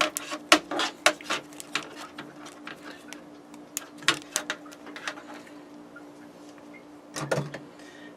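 Irregular sharp clicks and light knocks of small electrical parts being handled, bunched in the first couple of seconds, again around four seconds in and near the end, over a faint steady hum.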